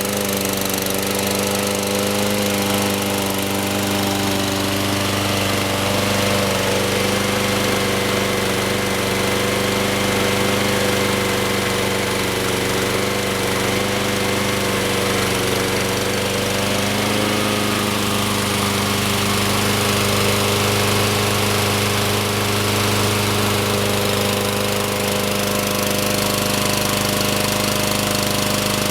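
Honda GCV160 single-cylinder engine on a Troy-Bilt TB542 rotary walk-behind mower, just caught on a pull start from choke and running steadily. It settles within the first second into an even, unchanging run.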